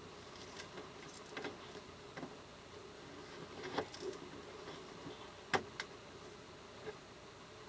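Scattered light clicks and knocks of inflatable-boat parts being handled and fitted, the sharpest one about five and a half seconds in.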